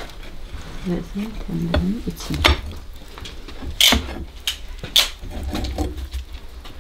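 Metal skewers and the rod carrying them clinking and knocking as chickens are hung inside a clay tandoor, a few sharp clacks, the loudest about four and five seconds in.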